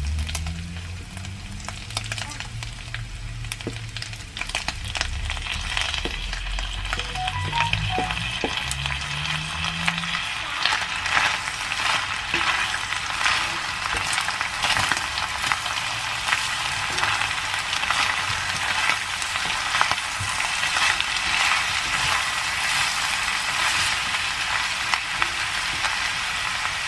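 Ground beef with chopped tomatoes and green onions sizzling in an enamelled cast-iron pot while a spoon stirs and knocks against the pot. The sizzle grows louder about five seconds in.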